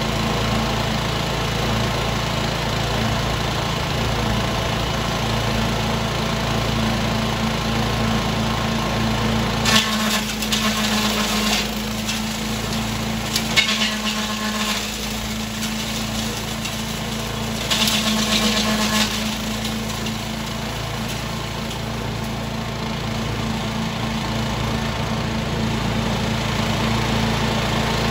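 Zenoah SR110 self-propelled 11-horsepower engine chipper-shredder running steadily, with two short, louder spells of noise about ten and eighteen seconds in as material goes through the shredder.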